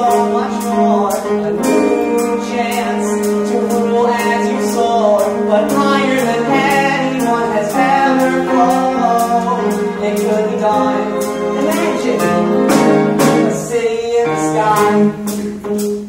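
Live musical-theatre pit band of woodwinds, strings, bass and drums playing a show tune, with singing over it and steady cymbal ticks keeping time.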